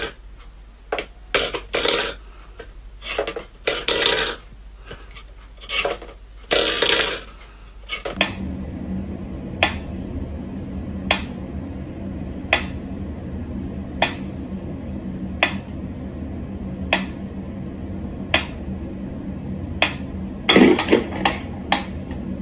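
Steel food bowls clattering and scraping irregularly on a wooden floor. Then a pendulum metronome ticking steadily, about one tick every second and a half, with a louder knock near the end.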